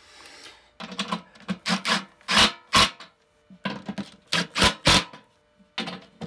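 Cordless drill driver with a socket running in a series of short bursts, tightening the bolts that hold the blower motor's mounting arms to the fan housing.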